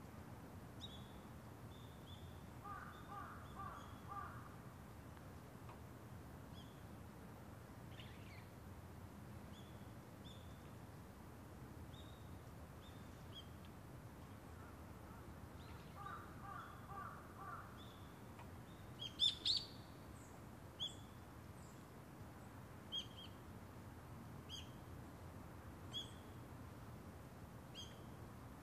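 Faint morning woodland: small birds give short high chirps again and again, and distant crows caw in two short runs of several caws, one early and one a little past halfway. About two-thirds of the way in, two sharp, louder sounds stand out, over a steady low background rumble.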